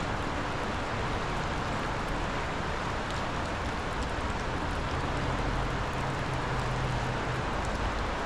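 Steady rushing noise of a flooded river running high. A faint low hum joins about five seconds in and fades before the end.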